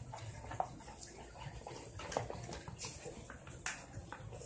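A hand squeezing and kneading a flour dough that is starting to firm up, in a plastic bowl: faint, irregular squishes and small knocks, with a spoon stirring in the bowl near the end.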